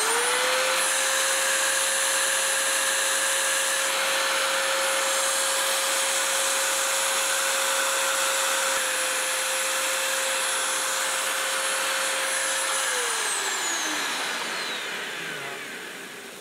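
Milwaukee magnetic drill's motor spinning up, running with a steady whine for about thirteen seconds while the annular cutter is fed down, then winding down near the end. The cutter is not cutting properly, which the owner later puts down to the slug from the previous hole being stuck inside it.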